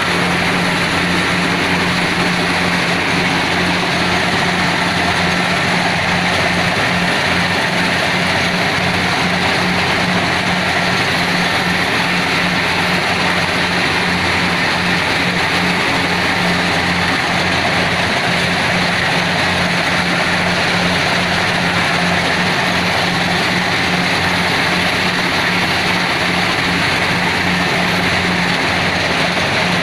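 Kubota DC70PH+ combine harvester running steadily, its engine holding an even hum under a constant mechanical rush.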